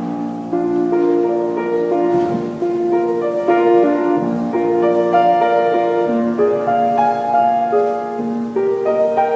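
Slow, gentle piano music, held notes changing about every half second, starting at the beginning.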